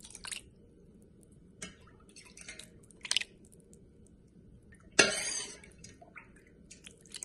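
Brine sloshing and splashing in a pot as a netted boneless turkey breast is pushed down into it to soak: a few short splashes, with a louder one about five seconds in.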